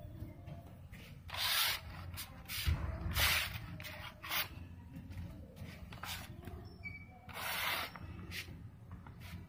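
Close handling and rustling noise: several short, hissy rustling bursts over a low rumble, the loudest near the end.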